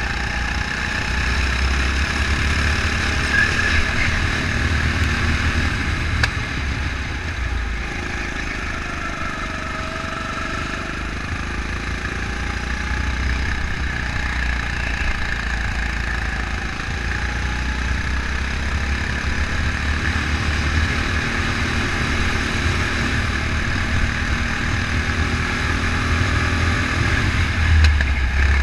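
Go-kart engine running under load while lapping, its pitch slowly rising and falling with the throttle through the corners, over a heavy deep rumble that swells and fades.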